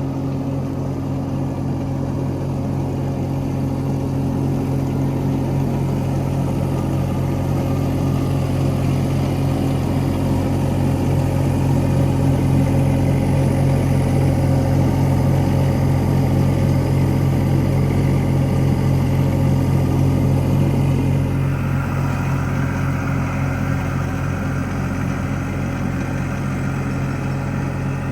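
Skid steer's engine running steadily at a constant speed, with a higher hiss joining in about three-quarters of the way through.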